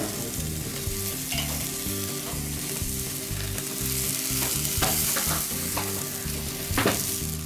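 Bratwursts sizzling on the grate of a Weber charcoal kettle grill over glowing coals, a steady crackling hiss. A few short clicks of metal tongs against the steel tray come as the sausages are lifted off.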